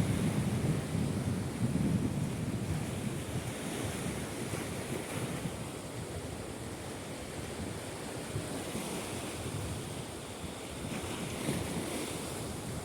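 Baltic Sea surf washing onto the beach, with wind rumbling on the microphone in gusts, strongest at the start.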